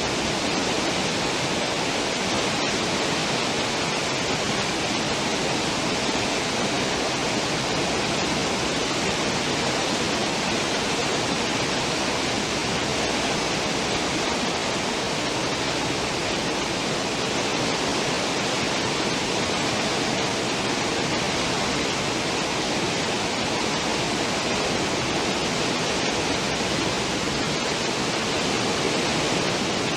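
Churning, foaming wake water behind a cruise ship's stern, a steady rushing hiss that does not change.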